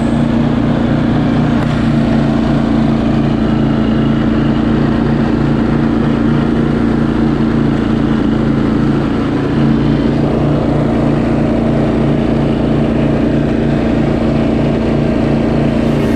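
Cox Stockman ride-on mower's engine running steadily, with an even pulsing beat.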